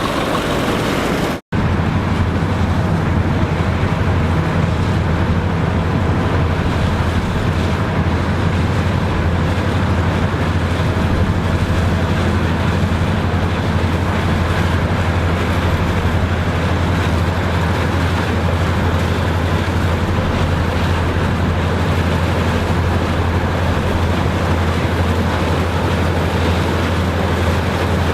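Farm machinery engine running steadily with a low drone, its sound cutting out for an instant about a second and a half in.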